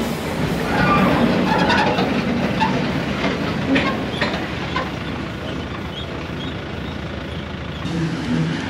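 Engine of a river vehicle ferry running with a steady low hum, with scattered metallic knocks and clatter in the first half.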